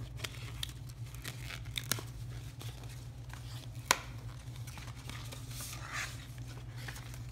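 Paper packaging and magazine pages rustling and crinkling as they are handled, in short scattered bursts, with one sharp click about four seconds in.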